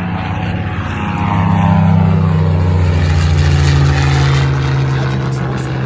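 Propeller-driven warbird flying past, its engine pitch falling as it goes by. The sound swells about a second and a half in and stays loud.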